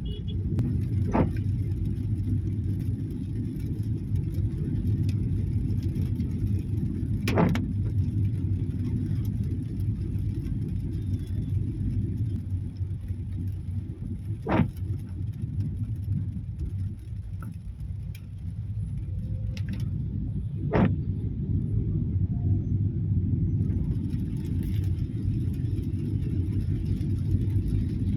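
Car driving in rain, heard from inside the cabin: a steady low rumble of engine and tyres on the road, with a short sharp click four times, about every six to seven seconds.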